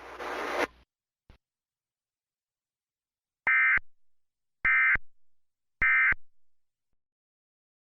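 Three short bursts of warbling EAS SAME digital data tones about a second apart: the end-of-message (EOM) code that closes an Emergency Alert System broadcast.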